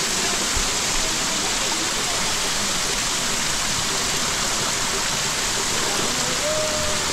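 Water pouring from the long row of 108 spouts in a stone wall and splashing into the channel below: a steady, even rush of falling water.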